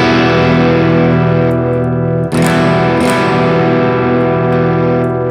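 Danelectro 59XT electric guitar chords played through a breadboarded TL071 op-amp boost with only its low-pass shunt capacitors switched in, so the op-amp's own clipping is softened and the high end tamed. One chord rings, and a second is struck about two seconds in and left to sustain.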